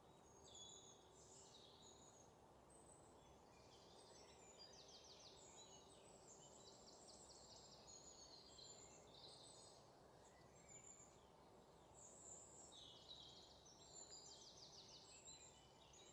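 Faint birdsong: short high chirps and quick trills of rapidly repeated notes from birds, over a steady low hiss.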